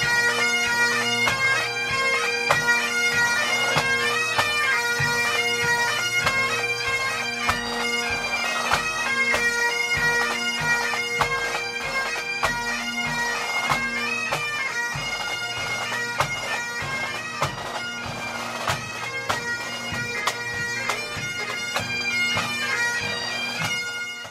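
A marching pipe band: Great Highland bagpipes playing a tune over their steady drones, with a regular drum beat underneath.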